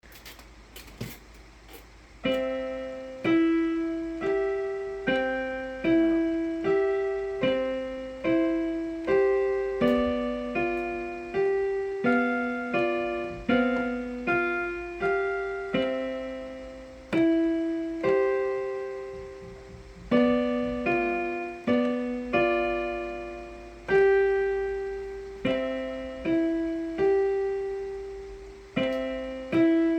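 Piano played slowly and evenly in broken chords, C-E-G and B-D-G arpeggios, one note at a time, each left to ring and fade: a young child's beginner practice piece. A few soft knocks come first, and the playing starts about two seconds in.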